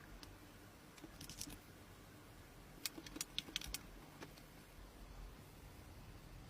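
Faint, quick light clicks and taps in two short clusters, the louder cluster about three seconds in.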